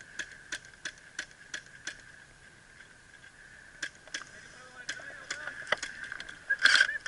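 Airsoft guns firing: sharp single shots about three a second for the first two seconds, then scattered shots, and a louder rapid burst near the end. A steady high whine runs underneath.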